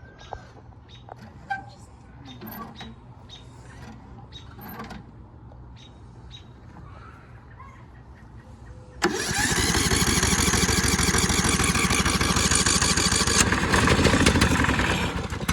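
Riding lawnmower's small engine ticking over faintly, then suddenly much louder about nine seconds in, rising in pitch as it comes up. It runs loud for about six seconds and dies away at the very end.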